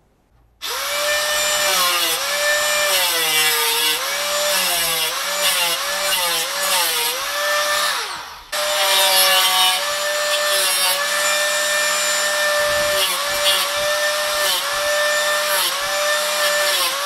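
Angle grinder with a thin cutting disc cutting a perforated metal sheet: a loud whine that drops in pitch again and again as the disc takes the load of the cut. It breaks off briefly just past halfway, then runs and cuts again.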